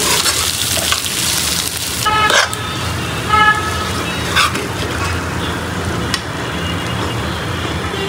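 Liver bhuna sizzling in a frying pan as it is stirred with a wooden spoon. The sizzle drops away about two seconds in, leaving a few scrapes and knocks of the spoon against the pan over a low steady rumble.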